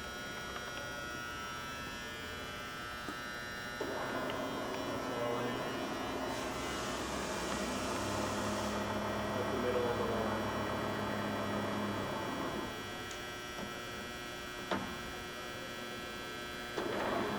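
CNC bed mill powered up and running, with a steady electrical hum from its motors and drives. A fuller machine running sound comes in about four seconds in and eases off about thirteen seconds in. There is a short stretch of hiss in the middle and a single click near the end.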